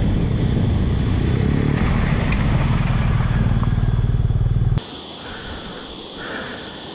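BMW GS motorcycle's boxer-twin engine running loud and steady as the bike rides through a shallow creek crossing, cut off abruptly about two thirds of the way in. After that, a quiet outdoor background with a few short bird calls.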